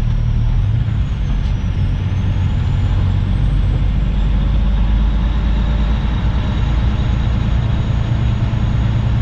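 Semi-truck diesel engine running steadily with a deep, even hum while the truck is driven.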